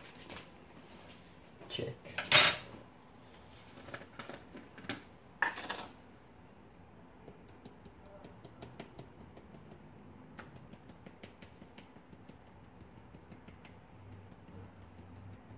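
Spice jars and a plastic spice shaker knocking and clinking against the counter and plate, with a few loud clatters in the first six seconds, the loudest about two and a half seconds in. After that, faint light ticking as the shaker is shaken over raw pork chops to season them.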